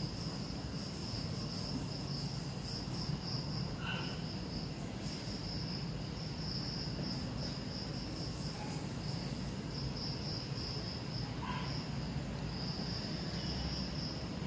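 Crickets chirping at night: a continuous high-pitched trill over a low background hum, with a couple of brief, higher calls about four seconds in and again near the end.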